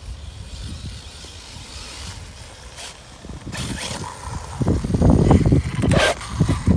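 Arrma Typhon 6S electric RC buggy running on a 4S LiPo: its brushless motor and tyres are heard across grass at first. About halfway through it gets much louder as the buggy comes up close onto concrete, with a couple of sharp scuffs.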